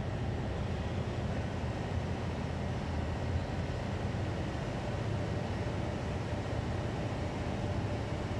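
KiHa 183 series diesel railcar idling at a standstill: a steady, low engine hum with no change in pitch or level.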